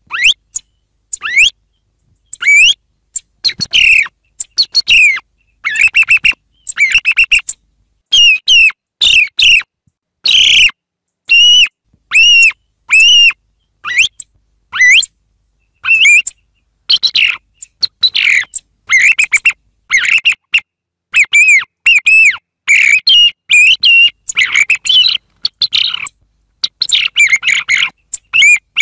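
Song thrush singing: loud phrases of quick whistled and chirping notes, each under a second long, with short silences between them and some phrases repeated two or three times in a row.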